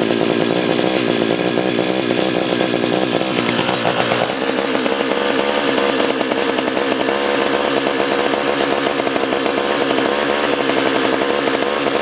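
McCulloch two-stroke chainsaw engine running. About four seconds in it speeds up to a higher, steady pitch and holds there.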